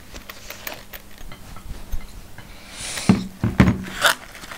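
Gin poured from a glass bottle into a small glass on a table, with small clinks and knocks of bottle and glass. A few louder knocks come about three to four seconds in, as the bottle and glass are set down.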